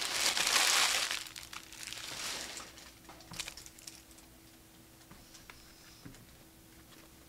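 Crinkling of a foil trading-card pack wrapper as it is torn open and handled. It is loudest in the first second, then fades to a softer rustle and a few light taps of cards.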